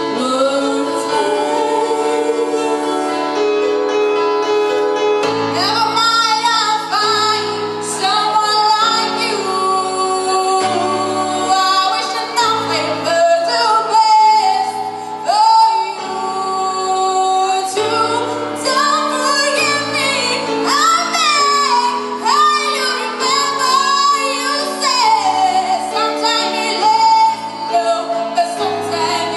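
A woman singing a song into a microphone over instrumental backing with a regular pulsing bass line, her voice wavering on long held notes.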